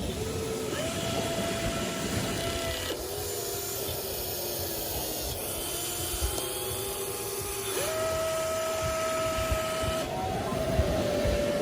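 Small electric motors of an RC toy excavator whining in steady tones, the pitch stepping up or down every two or three seconds as different functions are driven, over a steady hiss.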